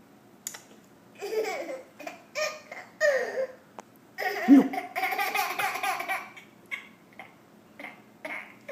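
A toddler laughing in several separate bursts, one of them longer, near the middle.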